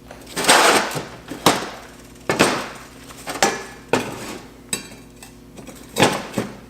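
About seven irregular sharp metallic knocks and clinks, each ringing briefly, over a steady electrical hum.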